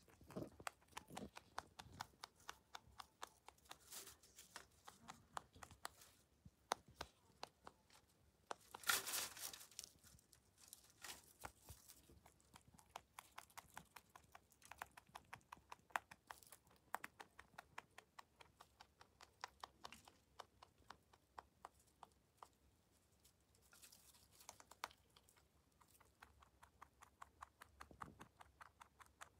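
Netherland dwarf rabbit chewing hay: rapid, crisp crunching, several chews a second, with a louder rustling burst about nine seconds in.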